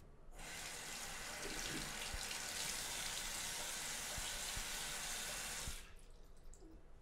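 Bathroom basin tap running, water pouring into the sink: it is turned on just after the start and shut off abruptly about six seconds in.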